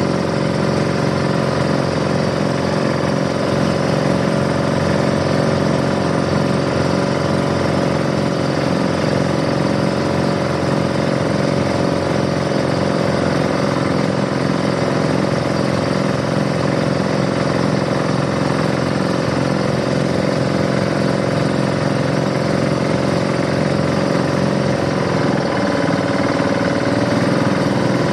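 Tour boat's engine running steadily, its note dropping slightly about 25 seconds in.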